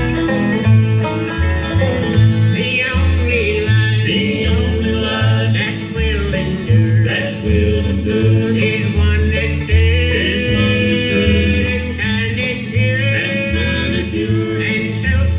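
Live bluegrass band playing a gospel tune: picked banjo, strummed acoustic guitar, a resonator guitar (dobro) and an upright bass walking a steady beat of about two notes a second.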